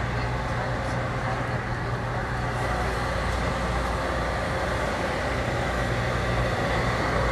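Steady shop ambience: a low hum under an even rushing noise, with no distinct events.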